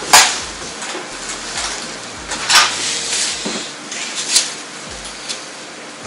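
Hairdressing scissors and comb handled during a haircut, giving a few sharp clicks and clacks, the loudest just at the start and others about two and a half and four seconds in, over a low steady hiss.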